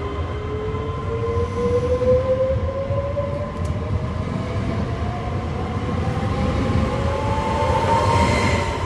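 Trenitalia Pop ETR 104 electric multiple unit pulling out and accelerating past. Its traction motors give a whine that rises steadily in pitch, over a low rumble of the train on the rails.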